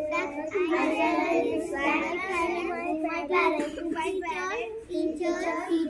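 A chorus of young children's voices chanting together in unison, with a sing-song rise and fall and only brief pauses for breath.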